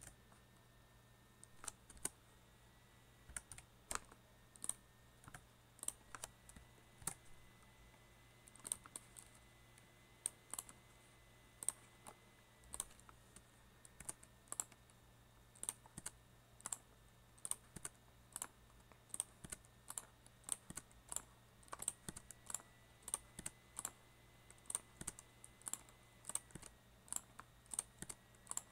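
Computer keyboard keystrokes, faint and sparse: single clicks and short clusters about one or two a second, with irregular gaps.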